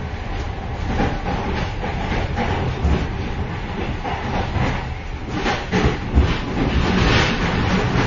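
Interior of a moving train's vestibule, the passage between carriages: continuous rolling rumble with rattling and metallic clatter, and a cluster of louder knocks and clanks from about five to seven seconds in.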